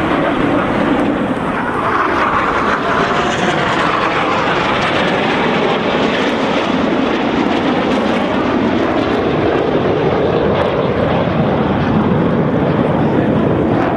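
Jet noise from the Frecce Tricolori's formation of Aermacchi MB-339 jet trainers flying past, steady and loud.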